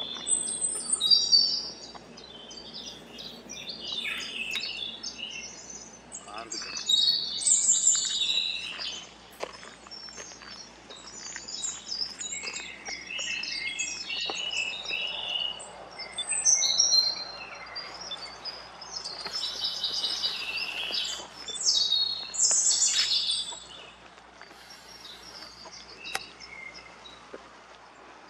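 Several songbirds singing and calling at once, with quick overlapping chirps and warbled phrases, quieter over the last few seconds.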